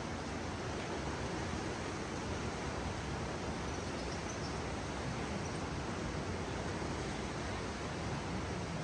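Steady, even rushing of flowing water, with a few faint high chirps about four seconds in.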